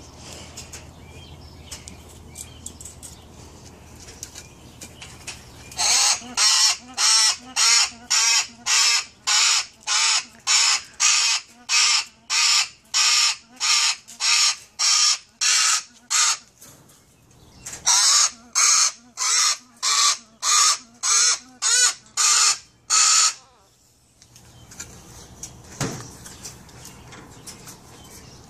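Pet parrot giving loud, harsh, short squawks in a steady run of about two a second. It stops for a second or two midway, then starts again for another five seconds.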